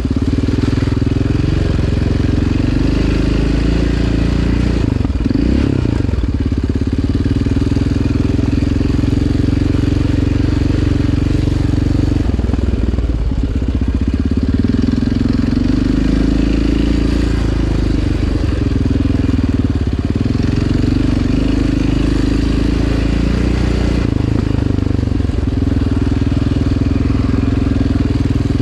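Yamaha Raptor 700R ATV's single-cylinder four-stroke engine running hard along a trail under constantly changing throttle. Its pitch rises and falls, and the rider backs off briefly a few times.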